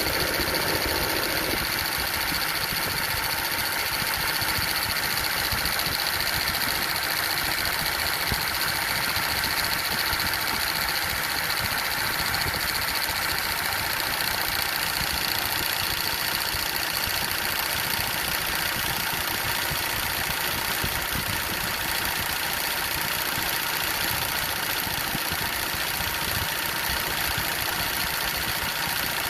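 Toyota Land Cruiser 80 Series 1HD diesel engine idling steadily with the AC compressor engaged, adding a steady high-pitched noise over the idle. This is the noise the owner was told points to an oversized size-17 compressor that should be replaced with a size 15.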